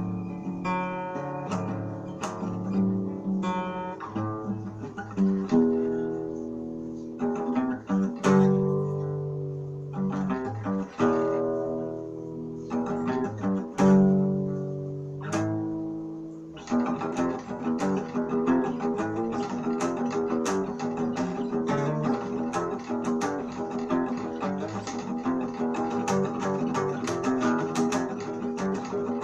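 Acoustic guitar music: chords are strummed and left to ring out, then a little over halfway through the playing turns to a quicker, busier stream of picked notes.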